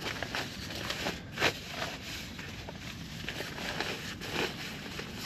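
Scattered rustling, scraping and light clicks of camping gear being handled, with a sharper click about one and a half seconds in and another near four and a half seconds.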